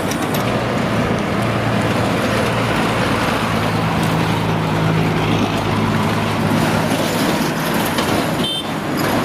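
Street traffic noise, with a bus engine running close by; its hum is strongest in the middle.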